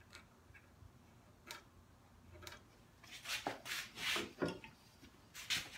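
Pencil marking and handling of a Woodpeckers story stick held against a wooden bench top: a few scattered light clicks, then a quicker run of short scratchy rubs and taps over the last few seconds.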